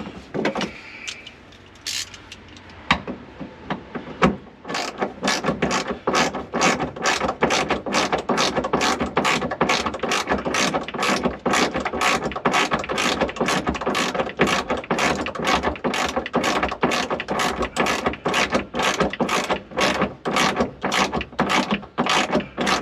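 Hand ratchet wrench clicking as a seat belt anchor bolt is run in, a steady train of about three clicks a second. A few scattered knocks come before the clicking starts, about four to five seconds in.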